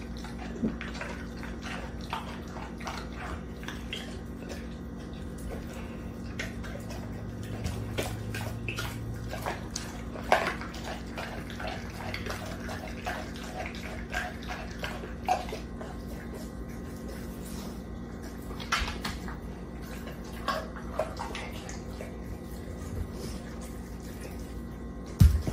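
A pit bull licking and mouthing a whole raw chicken: irregular wet smacks, licks and small clicks, with a sharper knock about ten seconds in and a louder one near the end.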